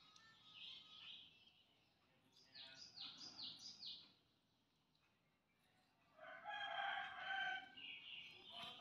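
A rooster crowing, faint and held for about two seconds, starting about six seconds in. Before it, around the third second, comes a run of four quick, high, falling chirps.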